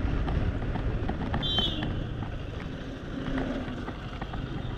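Wind buffeting the microphone and low engine and road rumble while riding a Yamaha R15 V3 motorcycle through traffic, with a brief high-pitched tone about a second and a half in.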